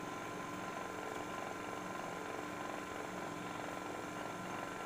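Low-wattage (80–100 W) mini table saw running with no load, a steady motor hum with a few fixed tones.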